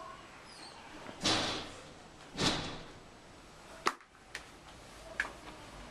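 Indoor handling and movement noises: two brief swishing sounds about a second apart, then a sharp click or knock near the middle and two fainter clicks later.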